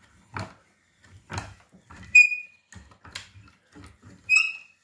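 A pet whining: two short high-pitched whines, about two and four seconds in, the first the louder, with a few brief knocks between them.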